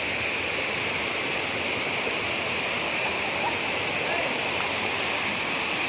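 Waterfall: the steady rush of water falling and splashing into its pool.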